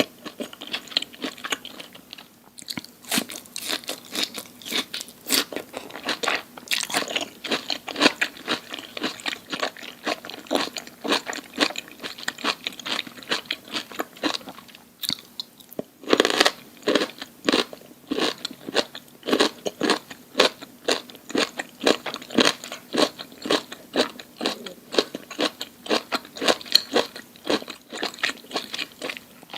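Close-miked crunching and chewing of crisp food in quick, dense crackles, pausing briefly about two seconds in and again about halfway, then resuming with loud bites.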